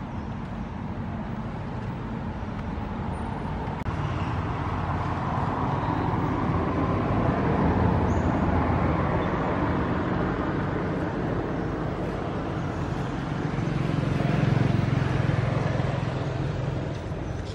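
Road traffic noise: a steady rush that swells twice, about halfway through and again near the end, as vehicles pass.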